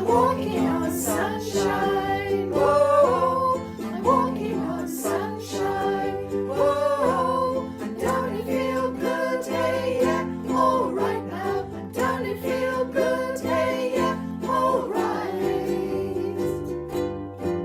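Music: a ukulele-strummed song with a melody line over a steady bass.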